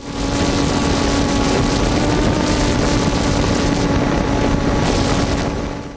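Multirotor drone's motors and propellers buzzing steadily, a constant hum over a rushing noise.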